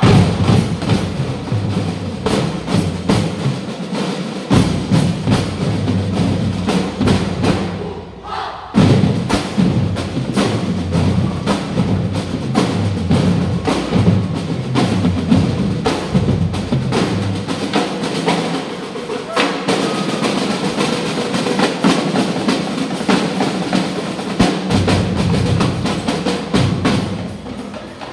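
Drum and lyre band playing a fast, driving rhythm led by its drumline. About eight seconds in the band briefly drops back, then comes in loud all at once.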